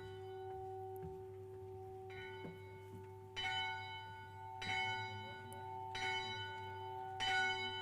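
A bell being rung, struck about five times at an even pace of roughly one stroke every second and a quarter, each stroke ringing on into the next.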